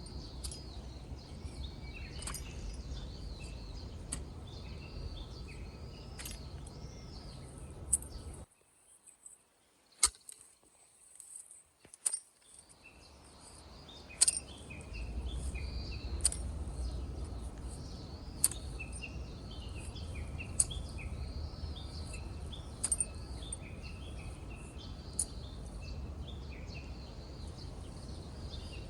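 Small birds chirping again and again over a steady low background noise, with scattered sharp clicks. About eight seconds in, the sound drops out almost completely for some four seconds, then the chirping and noise come back.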